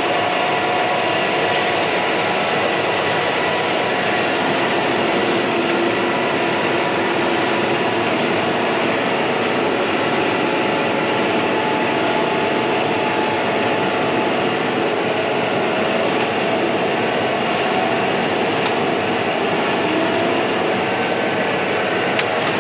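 Steady drone of a John Deere tractor with an IVT transmission, heard from inside its cab, as it creeps alongside a combine that is unloading corn into the grain cart. The running is even throughout, with a few held tones over the noise.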